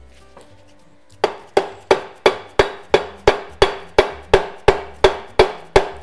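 A mallet striking a VW split-case gearbox shaft in a steady run of blows, about three a second, starting about a second in, each with a short metallic ring. The shaft and its bearing are being driven into the gearbox case, and the part is stuck.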